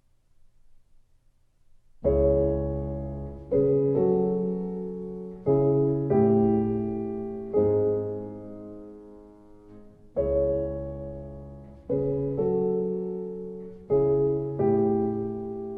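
Slow solo piano music that begins about two seconds in: sustained chords struck every second or two and left to ring and fade, the phrase repeating about eight seconds later.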